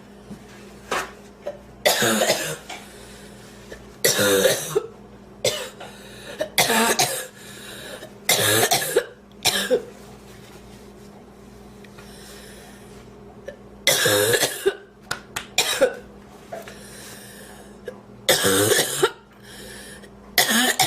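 A woman's coughing fit: loud, harsh coughs in bouts about every two seconds, with shorter coughs between. She is trying to clear a piece of sandwich she inhaled into her airway.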